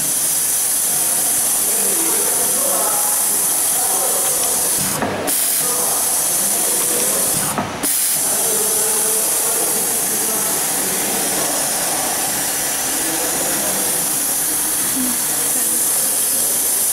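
Steady high air hiss from a pneumatic vacuum pouch labeller, cutting out briefly twice, about five and seven and a half seconds in.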